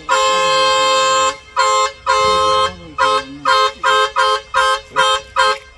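Vehicle horn honking: one long blast of about a second, two shorter blasts, then a run of about eight quick toots.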